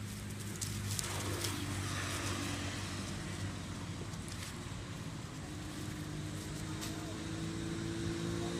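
Motorcycle engine idling steadily, its pitch creeping slightly up in the second half. A few faint rustles of dry leaf litter.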